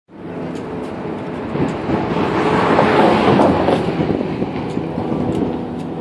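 Road traffic: a passing vehicle's engine and tyre noise swells to a peak about halfway through and then fades.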